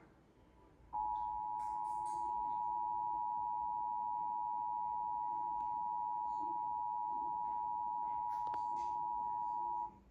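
Emergency Alert System attention signal: a steady two-tone alarm, 853 Hz and 960 Hz sounding together. It starts about a second in, holds for about nine seconds and cuts off just before the end.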